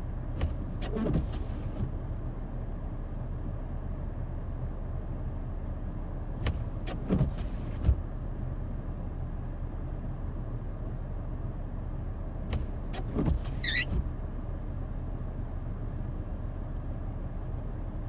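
Vehicle engine idling steadily, with a few scattered clicks and knocks and a brief high squeak about fourteen seconds in.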